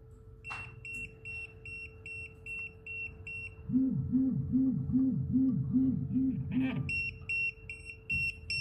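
Wireless restaurant guest pager alerting: after a click, a high electronic beep repeats about three times a second. About three and a half seconds in, the beeping gives way to the pager's vibration motor buzzing in pulses at the same pace, and near the end another click is followed by the beeping again.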